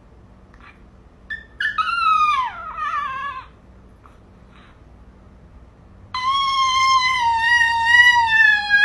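Dog howling on request: a short howl sliding down in pitch about a second and a half in, then a long held howl starting about six seconds in, sung as a note, which sounds too sharp to the owner.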